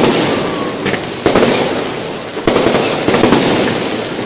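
Fireworks going off at close range: three loud booms, at the start and about 1.3 and 2.5 seconds in, over continuous crackling.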